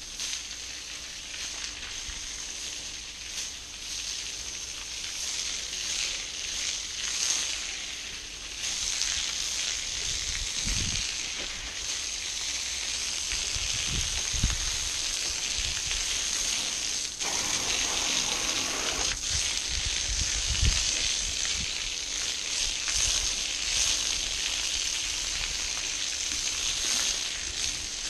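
Garden hose jet nozzle spraying a hard stream of water onto asphalt: a steady hissing splatter, with a few low thumps.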